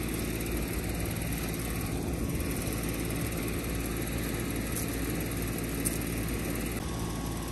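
A steady low engine drone that holds the same pitch throughout, with a faint tick about six seconds in.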